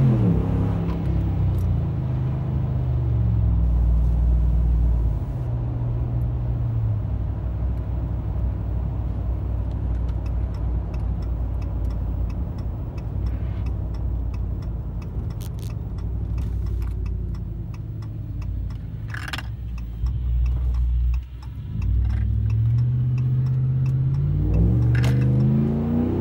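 2017 Ram 1500's 5.7 L Hemi V8 exhaust through Carven Competitor mufflers while driving. The engine note drops as it lets off near the start, settles into a steady low drone with tyre and road noise, and rises again as the truck accelerates near the end. A few sharp clicks come and go.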